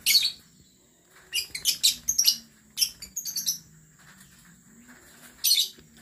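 Lovebirds giving shrill, high-pitched chirps in short clusters: one burst at the start, a quick run of chirps over about two seconds, and a last burst near the end.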